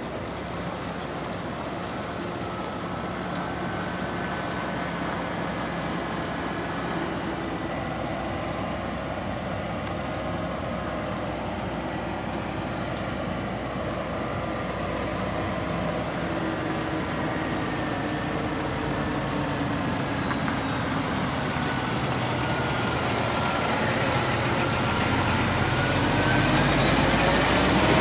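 Scania R420 truck's straight-six diesel engine running as the truck drives slowly with its semi-trailer, getting steadily louder as it approaches, with the engine note rising in the last few seconds as it passes close.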